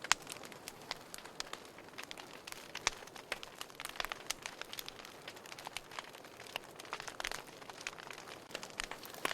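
Wood fire in a fireplace crackling, with a steady low hiss and irregular sharp pops and snaps, one of the loudest just after the start.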